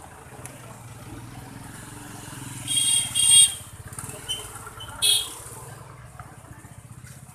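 A motor vehicle engine runs close by with a steady low hum. There are two short, loud, high-pitched sounds about three seconds in and a third about five seconds in.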